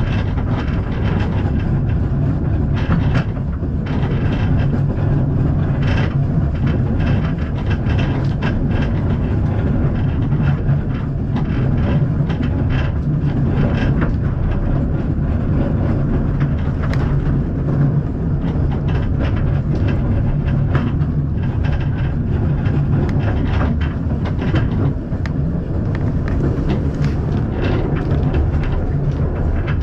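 Narrow-gauge steam railway carriage running along the track: a steady low rumble with frequent irregular clicks and rattles from the wheels and coach.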